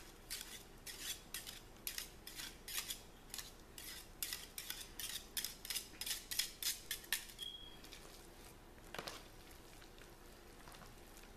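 Wire whisk beating milk into mashed potato flakes in a disposable aluminium foil pan, its wires scraping and clattering against the foil in quick strokes, about three a second. The strokes stop about two-thirds of the way through, with one last scrape a little later.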